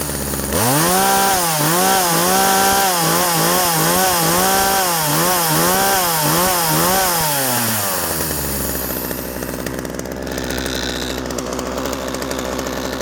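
Poulan Pro 260 42cc two-stroke chainsaw engine revved in quick throttle blips, about two a second, for roughly seven seconds, then dropping back to a steady idle.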